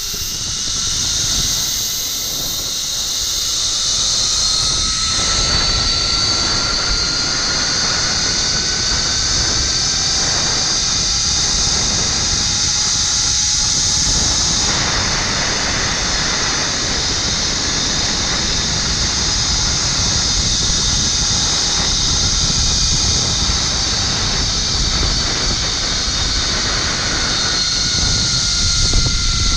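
Zip-line trolley pulleys whining along the steel cable, with wind rushing over the microphone. The whine rises slowly in pitch as the ride speeds up and drops near the end.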